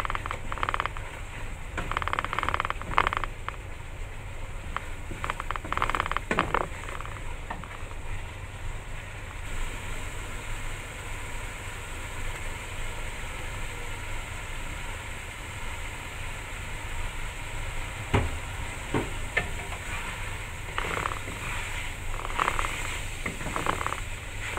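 Spice mixture sizzling as it fries in a granite-coated wok, with a wooden spatula scraping and stirring it in bouts. A couple of sharp knocks come about eighteen seconds in.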